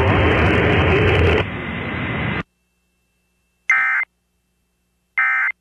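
Noisy, hissy broadcast audio from the end of the national EAS test runs for about two and a half seconds and cuts off abruptly. After a moment of silence come two short, identical buzzy data bursts about a second and a half apart: the Emergency Alert System's End of Message (EOM) tones.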